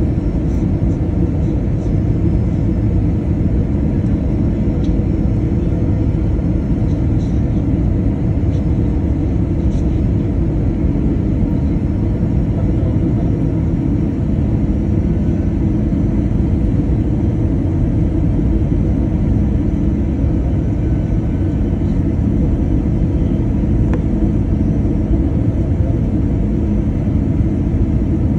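Airliner cabin noise on final approach for landing: a steady low rumble of engines and airflow that does not change.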